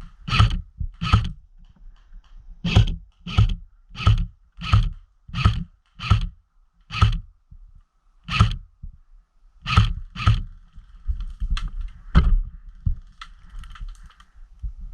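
Footsteps at a walking pace, a dull thud about every 0.7 s with a few short pauses, growing softer and more scuffing near the end.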